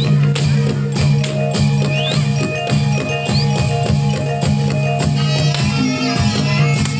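Live Reog Ponorogo accompaniment music: steady drum strokes over sustained ringing gong-and-bronze tones. A few short rising high glides cut through, about two and three seconds in.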